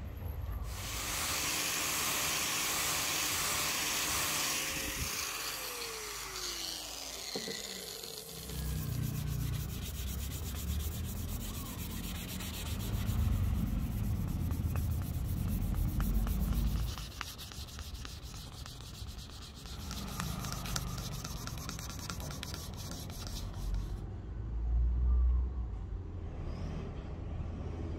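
Sandpaper rubbing over an ebony wood hammer handle during hand sanding, with a low rumble underneath at times.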